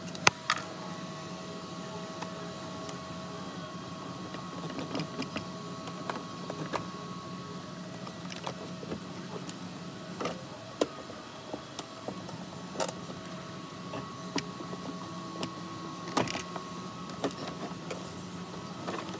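Scattered clicks and knocks of plastic centre-console trim in a Ford Figo being handled and worked loose around the gear lever, over a steady background hum.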